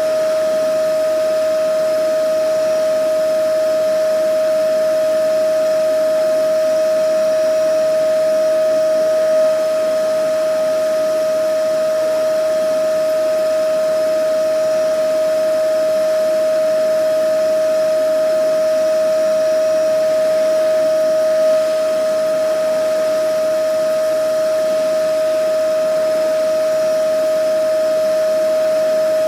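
Vacuum cleaner running steadily: a constant motor whine held at one pitch over the rush of air.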